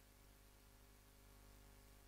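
Near silence: only a faint, steady low hum and hiss.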